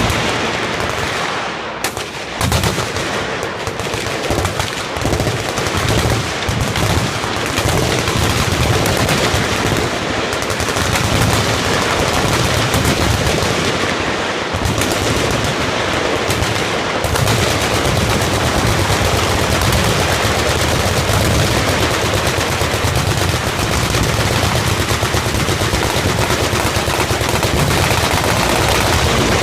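Many machine guns firing at once along a firing line: a dense, near-continuous stream of automatic gunfire, with overlapping shots and bursts.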